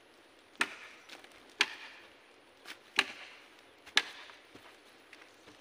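Machete blows chopping into wood: four sharp strikes about a second apart, with a lighter knock between the second and third.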